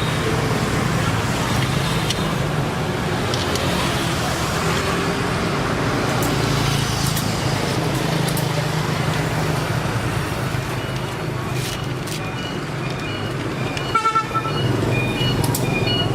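Refrigeration vacuum pump running steadily with a low hum, evacuating a mini refrigerator's sealed system. Near the end there is a click and a brief horn-like tone, then a string of short repeated high beeps.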